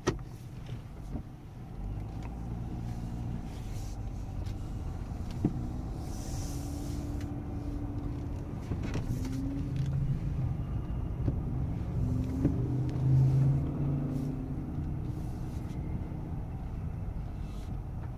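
Dodge Grand Caravan minivan driving off at low speed, heard from inside the cabin: a steady engine hum and rumble, with the engine note rising as it accelerates and turns, loudest about two-thirds of the way in. A single click about five seconds in.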